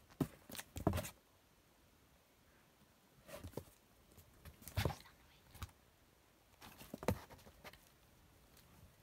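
A kitten's claws scrabbling and paws knocking on a cardboard box as it climbs in and out, in about four short flurries of scratches and thumps.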